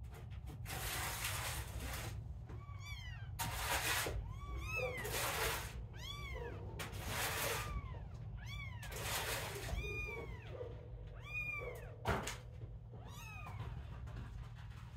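Young kittens mewing over and over: many short, high-pitched calls that rise and fall, sometimes overlapping. Several bursts of hiss break in between them, and there is one sharp knock late on.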